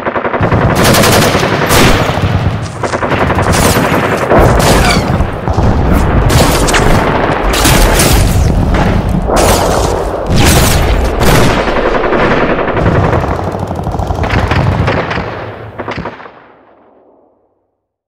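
A loud logo-intro sound effect of rapid, dense bangs and crackling over a low rumble, which dies away near the end.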